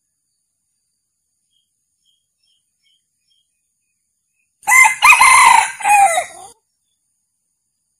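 Male red junglefowl crowing once, a short clipped crow of about two seconds in three joined parts, coming a little past halfway.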